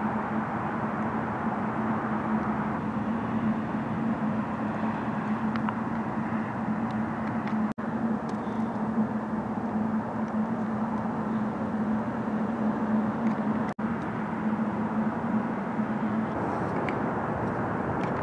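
Steady outdoor background rumble, like distant traffic, with a steady low hum that fades out near the end; the sound drops out for an instant twice.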